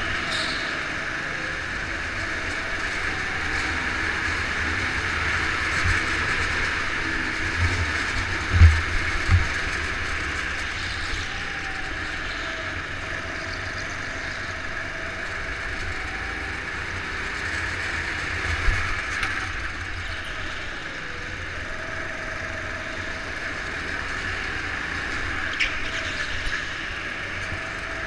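A rental go-kart's engine running steadily, heard from a camera mounted on the kart, with a constant high drone and a pitch that wanders a little through the corners. A few dull knocks stand out about eight to nine seconds in and again around eighteen seconds.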